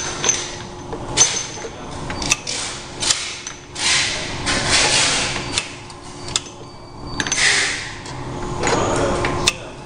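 Semi-automatic round-bottle labelling machine at work: repeated swishing and rubbing as bottles are rolled under the labelling roller, with sharp clicks as bottles are set in and taken out, over a steady low hum.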